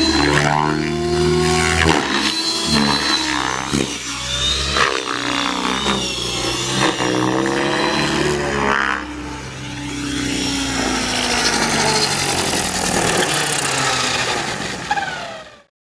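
Align T-Rex 600E electric RC helicopter flying aerobatics: its motor and rotor whine slides up and down in pitch as it swoops and changes direction. The sound cuts off suddenly near the end.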